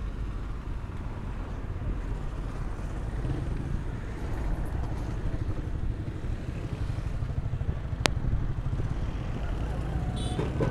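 Street traffic: the steady rumble of passing vehicle engines. A single sharp click sounds about eight seconds in.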